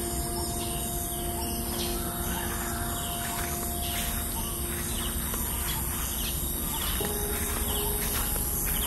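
Birds chirping again and again over a steady outdoor hiss, with soft held music chords underneath that move to new notes about seven seconds in.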